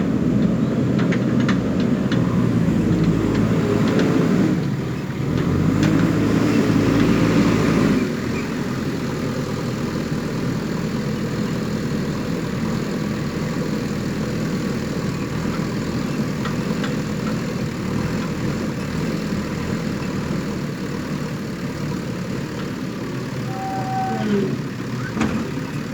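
Diesel engine of a JCB backhoe loader, working hard for about the first eight seconds and then running lower and steadier. A brief high tone sounds near the end.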